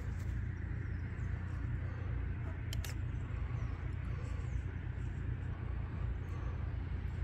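Absima Sherpa RC scale crawler's electric motor and drivetrain whirring steadily as the truck crawls slowly over a rock, over a steady low rumble, with one sharp click about three seconds in.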